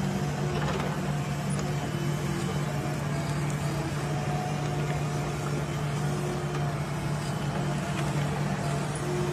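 Tigercat tracked forestry machine's diesel engine running steadily under load: an even low drone with a fainter wavering tone above it.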